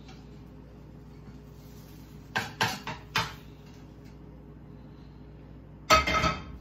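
A spatula scraping and knocking three times against a nonstick frying pan as an omelette is slid out onto a plate, then the pan set down on the gas stove's grate near the end, the loudest sound, with a short ring.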